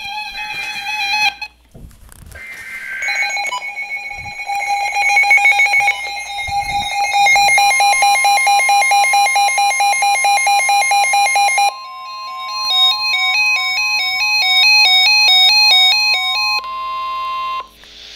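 Electronic emergency alert tones: short warbling bursts, then fast pulsing beeps and a two-tone alternating pattern over a long steady high tone that cuts off shortly before the end.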